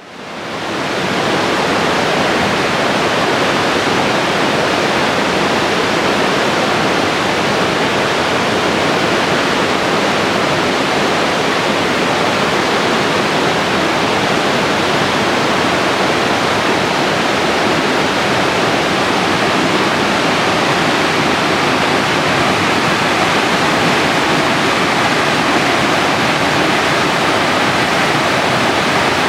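Waterfall: a steady, loud rush of falling water that fades in over the first second and then holds even.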